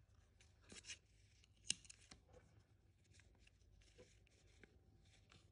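Near silence with faint rustling and light clicks as yarn and a crochet hook are handled, one sharper click just under two seconds in.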